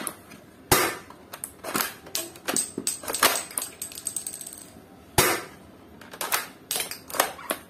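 ABS-plastic bolt action of a toy AWM L96 foam-dart blaster being cycled by hand: a series of sharp plastic clicks and clacks, bunched together near the end, as the bolt is worked to throw the shell out of the chamber.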